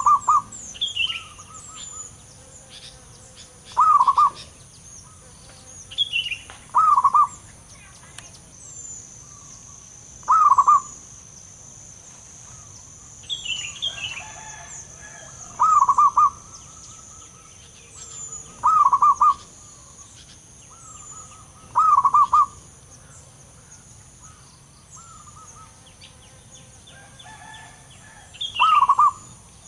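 Zebra dove cooing: short phrases of quick, rolling coos, repeated about every three seconds. Fainter, higher chirps and a steady high hiss sound between them.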